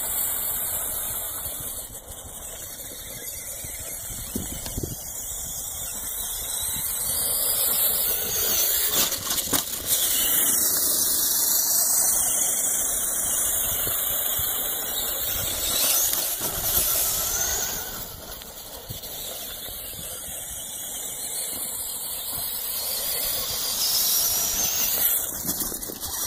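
Tamiya Clod Buster RC monster truck driving on dirt: the high-pitched whine of its electric motors and gearboxes, swelling and fading as it speeds up and slows down.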